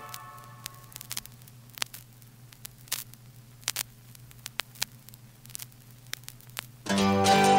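Vinyl LP playing the silent groove between two songs: surface hiss with scattered clicks and pops over a steady low hum. The next song starts near the end.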